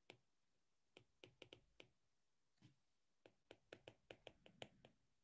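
Faint, light clicks of a stylus tapping on a tablet screen while handwriting: about fifteen short ticks, scattered at first and coming faster in the second half.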